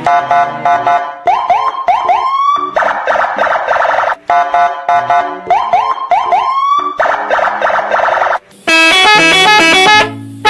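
Electronic siren-like sound effect: four quick rising whoops followed by a buzzy steady wail, the pattern played twice, then a run of quick electronic notes near the end.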